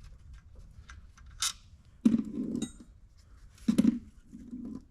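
A few metallic clinks and knocks as the oil pump is worked loose from the engine's camshaft drive; the loudest come about two seconds and about four seconds in.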